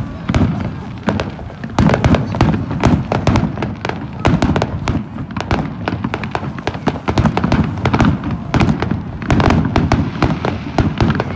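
Aerial fireworks display: a continuous barrage of shell bursts, rapid overlapping bangs and booms mixed with crackling, with no pause.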